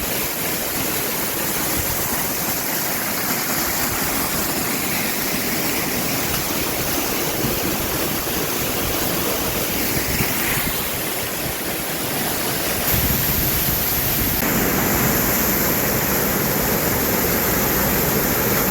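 Snow-melt waterfall rushing steadily, a constant roar of falling water. About two-thirds of the way through it grows louder and deeper.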